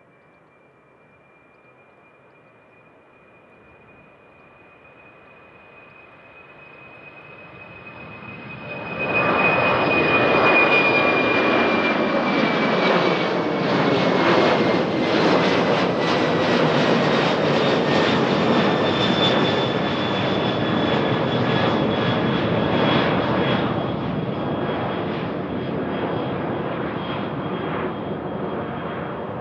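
Airliner's engines passing close by. A high whine grows out of faint background and becomes a loud, broad engine sound about nine seconds in. The whine then slides down in pitch as the aircraft goes past, and the sound slowly fades.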